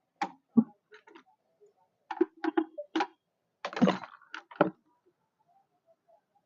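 Irregular sharp clicks and knocks of hard objects being handled, with a short scraping rattle about four seconds in, then it goes almost quiet.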